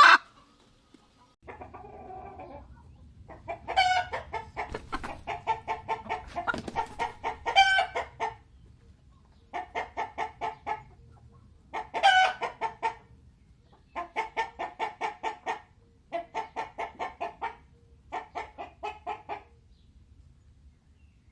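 Chicken clucking in repeated runs of rapid clucks, several a second, each run lasting a second or a few, with short pauses between, over a faint low hum.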